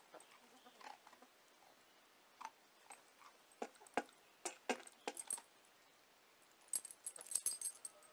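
Faint, scattered sharp clicks and metallic rattles as a hen pecks dry kibble from a stainless steel dog bowl, with a quick run of jingling metal clicks near the end.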